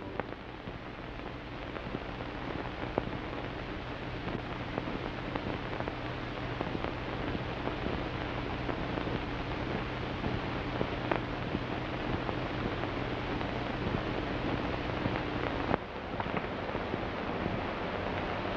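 Steady hiss with scattered faint crackles and a low hum: the surface noise of a worn early optical film soundtrack, with no music or dialogue. The hum drops away near the end.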